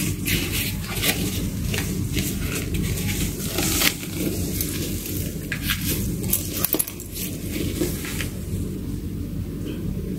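Nylon shopper bag being handled: the fabric rustles and crinkles, with scattered light clicks throughout.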